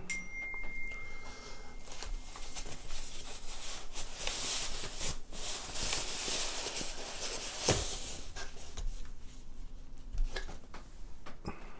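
Rustling and rubbing of packaging as a boxed mechanical keyboard is unpacked by hand, with a few light knocks, the sharpest about two-thirds of the way through.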